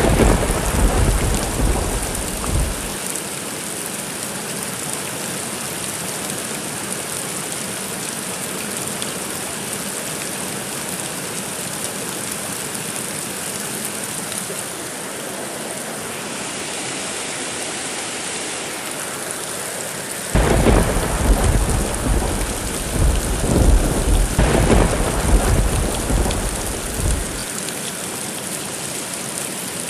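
Steady rain falling, with thunder rolling in twice: a rumble dying away about three seconds in, and a longer rumble of several seconds starting about two-thirds of the way through.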